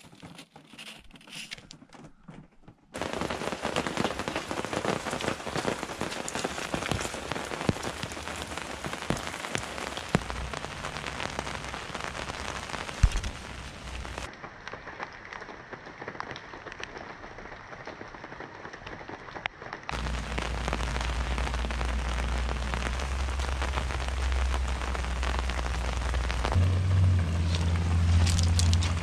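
Steady rain falling on ground and gravel, a dense patter of many small drop impacts, starting faint and becoming loud about three seconds in. In the last third a deep low rumble runs under the rain.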